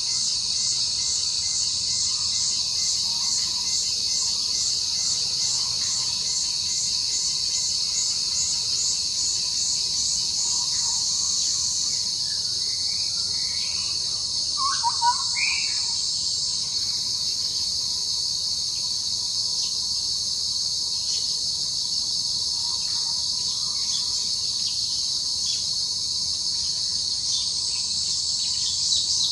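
Steady, high-pitched chorus of insects, pulsing quickly for the first dozen seconds and then more even. A few short bird chirps come in about fifteen seconds in.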